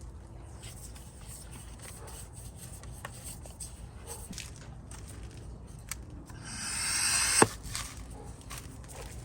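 Light handling clicks and knocks of parts being moved, then a rising hiss lasting about a second that ends in a sharp click about seven seconds in.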